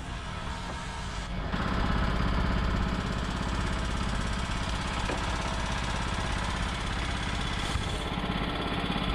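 Small engine, likely the generator powering the platform's lamp, running steadily at an even idle. It gets louder about a second and a half in.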